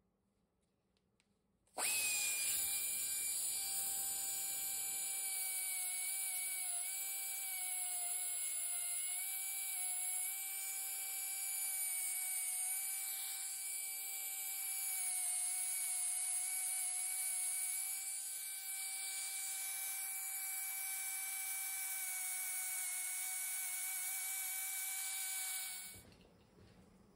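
Die grinder starting about two seconds in and running at a steady high whine as its bit reams and tapers the pilot hole in a wooden tool handle, the pitch dipping slightly now and then under load, then shutting off and winding down near the end.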